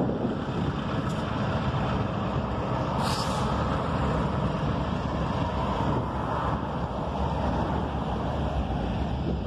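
Diesel freight locomotives and their train of hopper cars rumbling past, mixed with highway traffic and wind buffeting the microphone. A brief sharp hiss comes about three seconds in, and a car passes close on the road near the end.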